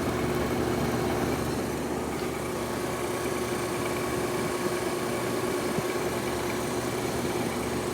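1953 Fedders Weather Bureau window air conditioner running: a steady hum of its compressor and fan with a steady tone over the airflow noise, the unit cooling with a full refrigerant charge.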